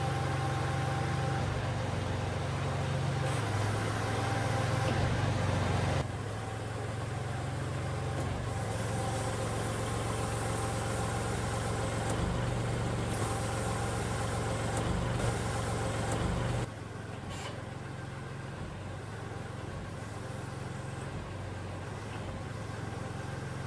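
Kubota L3301 tractor's three-cylinder diesel engine idling steadily during a hydraulic test run, its level stepping down twice, at about six and seventeen seconds.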